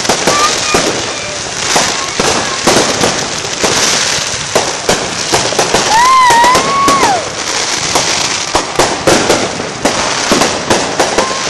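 Many fireworks and firecrackers going off at once: a dense, uneven crackle of bangs and pops. About halfway through, a single whistle rises and then falls.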